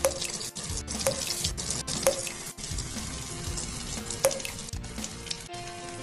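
Background music with held notes and a sharp strike about once a second, over a steady hiss of rain splashing on water.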